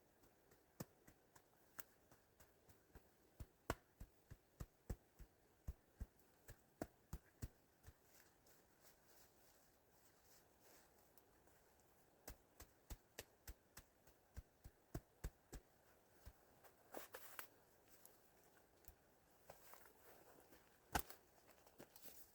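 A quiet series of short, sharp taps or clicks, about two a second, in two runs. Brief rustling and one louder click come near the end.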